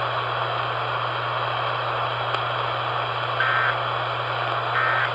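AM radio static and hiss under a steady low hum, broken near the end by two short, high warbling data bursts about a second and a half apart: the Emergency Alert System end-of-message tones closing the alert.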